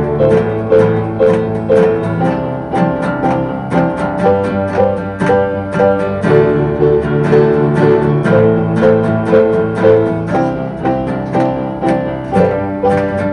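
Instrumental break in an acoustic song: plucked strings picking a quick repeating figure, about four to five notes a second, over sustained lower notes, with no singing.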